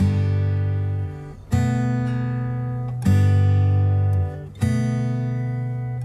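Background music: an acoustic guitar strumming chords about every second and a half, each chord left to ring out.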